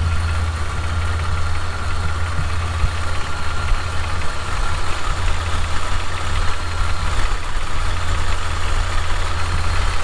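Jeep Wrangler TJ's 4.0-litre inline-six running steadily at operating temperature, with a faint steady whirr from the front belt drive. The owner likens the whirr to a bearing gone and suspects a worn idler pulley or belt tensioner, with the alternator as the other suspect.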